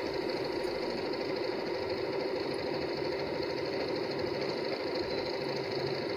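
Janome Memory Craft 6000 sewing machine running steadily, stitching a built-in decorative pattern.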